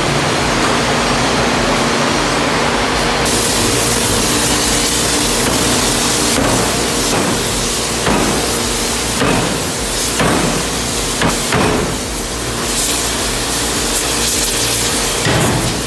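Heavy industrial forging machinery: loud hissing over a steady mechanical hum, with hard hammer-like thuds at irregular intervals from about six seconds in.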